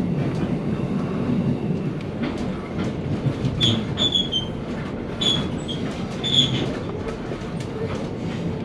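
Passenger train carriage heard from inside while running: a steady rumble of wheels on rail with scattered clicks from the track. Several short, high wheel squeals come between about three and a half and six and a half seconds in.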